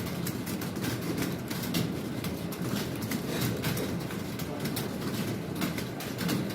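Many computer keyboards being typed on at once: a dense, irregular clatter of keystrokes over a steady low rumble of room noise.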